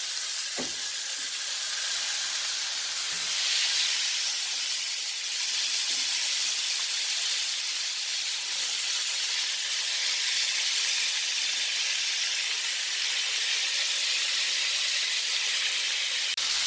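Lamb shoulder blade chops searing in hot olive oil in a frying pan: a steady sizzle as the meat browns.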